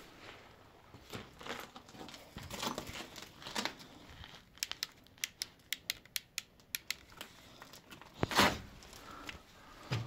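Footsteps crunching and scraping on debris, with a quick run of sharp clicks in the middle and a louder brushing scrape near the end.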